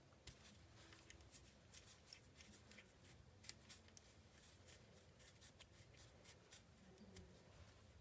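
Faint, scattered small clicks and rustles of hands working a shotgun's sling loose at its rear swivel.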